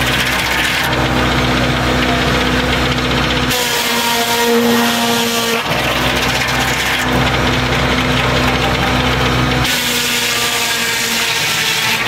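Large circular sawmill blade cutting through a log, over the steady running of the mill's drive. The sound turns deeper and heavier about a second in and again about halfway through, and brighter in between and near the end.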